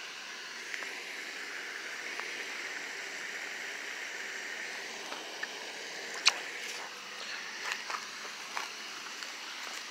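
Steady outdoor night hiss, with a few short sharp clicks and knocks of handling as a small largemouth bass is let go over the pond edge. The loudest click comes about six seconds in.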